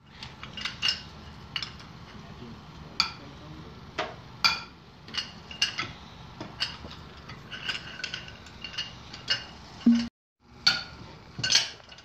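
Steel hand tools, wrenches and sockets, clinking and tapping irregularly against a bare aluminium engine while its cylinder head is being unbolted. Each knock is sharp and rings briefly.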